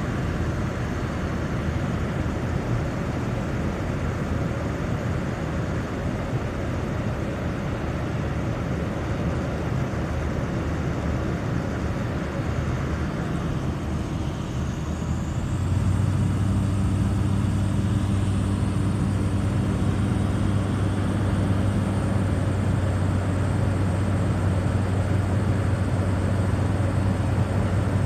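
Light aircraft engine and propeller droning steadily, heard from inside the cockpit. About halfway through, the sound grows a little louder and settles into a steadier, deeper hum, as the engine's note changes.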